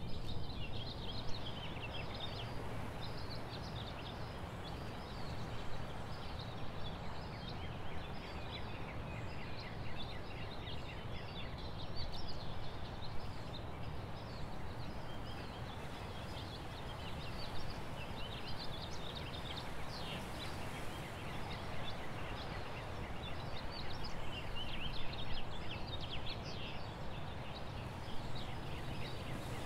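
Many small birds chirping in quick, short calls over a steady rushing background noise.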